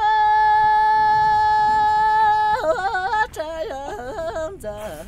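A solo voice singing a Tibetan folk song: one high note held for about two and a half seconds, then quick ornamented turns up and down in pitch.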